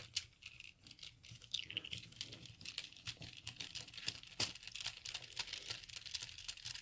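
Faint, irregular small clicks and scrapes from a Brinks 642 padlock's parts and small tools being handled while the lock is taken apart.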